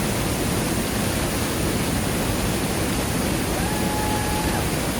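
Small waterfall splashing close by: a steady, even rush of falling water. A faint, thin high tone is held for about a second past the middle.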